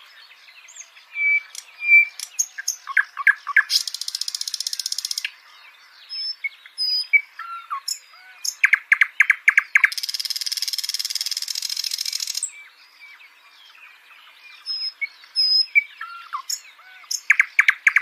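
Nightingale singing its varied song: clear whistled notes, fast runs of hard clicking notes and long dry, buzzy rattles, with a short pause about two-thirds of the way through.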